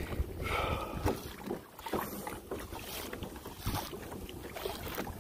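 Water sloshing around a kayak on the sea, with wind rumbling on the microphone and scattered short knocks throughout.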